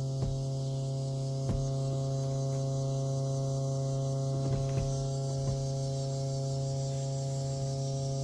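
Steady electrical hum from the 2011 Yamaha WaveRunner FX SHO with a few short clicks as the start is tried, but no sound of the engine turning over: the jet ski failing to crank.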